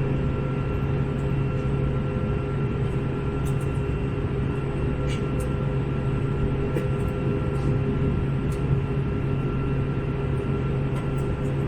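Steady cabin noise of an Airbus A321 in flight: constant engine and airflow noise with a few fixed hum tones, the lowest the strongest, and occasional faint ticks.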